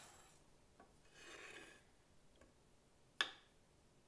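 Knife cutting a piece of pecorino cheese: a soft scrape about a second in, then a single sharp tap about three seconds in.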